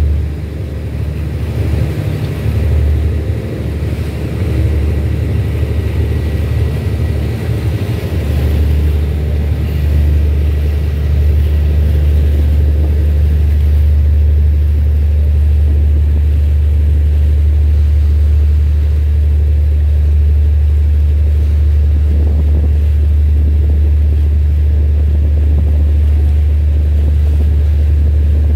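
Steady low engine drone, a little uneven for the first eight seconds or so, then even.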